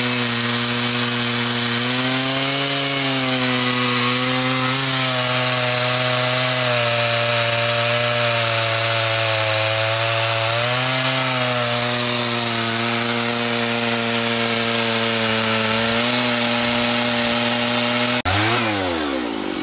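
Large two-stroke Stihl chainsaw running at full throttle while cutting through a big oak log, its pitch sagging briefly a few times under load and recovering. Near the end the throttle is let off and the revs fall away quickly.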